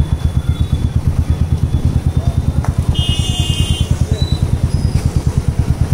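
Motorcycle engine running steadily while being ridden, a fast, even low throb heard from on the bike. A brief high-pitched beep sounds about three seconds in.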